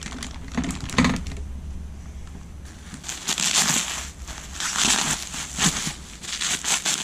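Plastic bag and bubble wrap crinkling as they are handled and pulled off new exhaust pipes, in irregular rustling bursts that get louder about three seconds in, with a knock about a second in.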